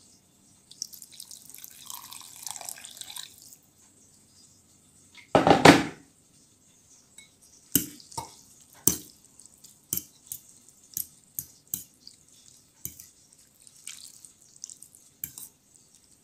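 Liquid splashing in a bowl for a few seconds, then a short loud knock about five seconds in. Through the second half a metal fork clinks sharply against a ceramic bowl about a dozen times while stirring instant noodles.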